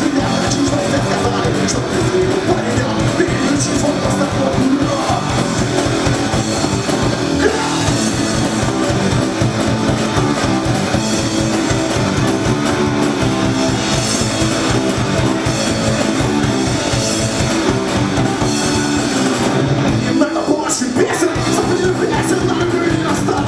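Punk rock band playing live at full volume: distorted electric guitars, bass and drums.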